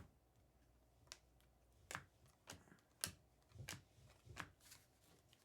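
Basketball trading cards being flipped through by hand, about seven faint, short clicks and snaps a half second or so apart as each card is slid off the stack.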